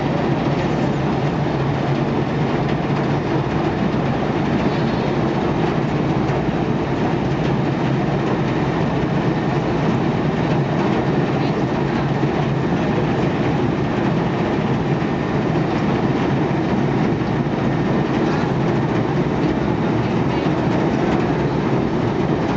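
Workboat's diesel engine running with a steady, unchanging rumble as the boat moves slowly past.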